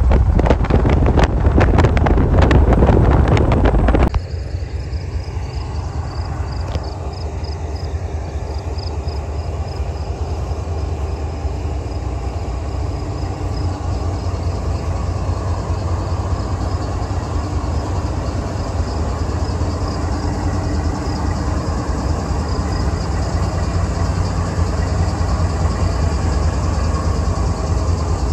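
Diesel freight train passing: for the first four seconds a loud rattle and clatter of wheels over the rails, which cuts off suddenly. Then diesel locomotives rolling slowly past close by, their engines giving a steady low rumble with a faint high whine above it.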